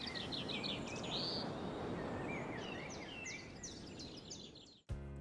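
Birds chirping in quick series over a steady soft hiss of outdoor ambience; it all cuts off suddenly near the end.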